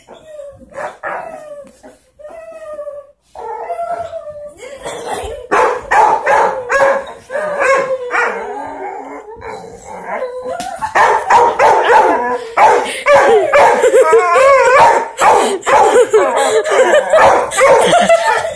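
A dog barking, yipping and howling in rough play. The calls are scattered at first, then come thick and loud from about eleven seconds in.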